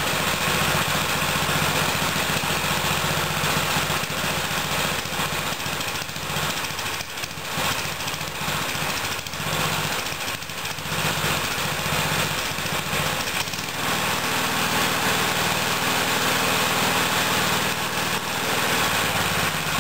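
An old lawn mower's Tecumseh small gasoline engine running continuously, with a few brief dips in its sound in the middle.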